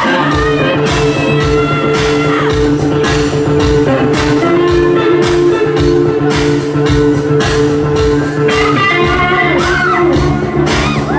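Live rock band playing amplified music: drums on a steady beat under guitar and held chords, with a voice singing briefly near the end.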